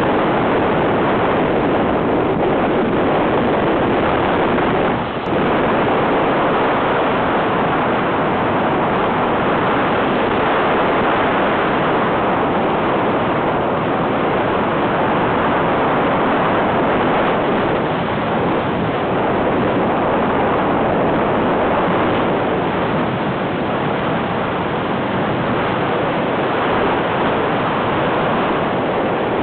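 Steady rush of wind over the microphone of a camera carried on a hang glider in flight, dipping briefly about five seconds in.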